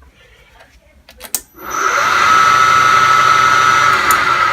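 Two clicks, then the AL960B metal lathe's spindle motor starting up and running steadily, rising to speed in about half a second with a high whine over the hum.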